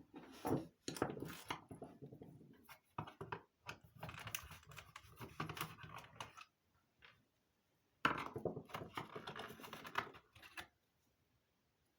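Screwdriver taking the screws out of a radio telephone's metal battery pack, with small clicks, knocks and scraping of the tool and metal parts in three spells of a few seconds each.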